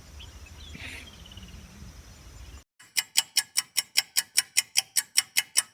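Faint outdoor ambience with small bird chirps, then after an abrupt cut a rapid, perfectly even ticking, about five or six sharp ticks a second, that stops suddenly near the end.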